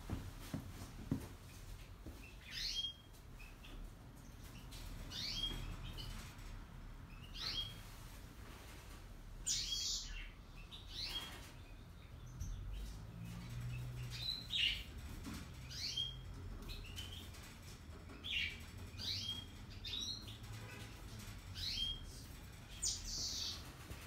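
Repeated short, high chirps that fall in pitch, roughly every two seconds, over the low hum of a Hotpoint Ariston Aqualtis washer-dryer running the drying stage of its test programme.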